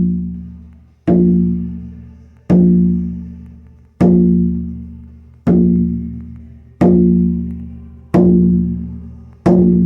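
24-inch elk-hide frame drum on a maple hoop struck with a beater in a slow, steady beat, about one stroke every second and a half, seven strokes in all. Each stroke rings on with a deep tone that fades before the next.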